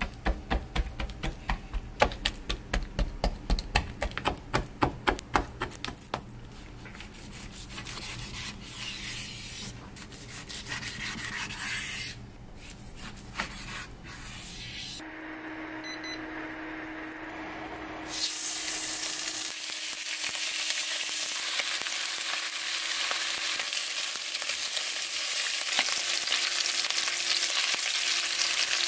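A fork jabbing repeatedly into a slab of raw pork belly on a wooden cutting board, about four quick strikes a second, then a knife cutting the slab into chunks. About eighteen seconds in, a loud steady sizzle starts: chunks of pork belly searing in a hot pot.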